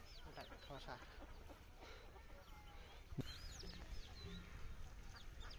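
Faint rural riverside ambience with scattered short chirps of small birds and a single soft knock a little past three seconds in.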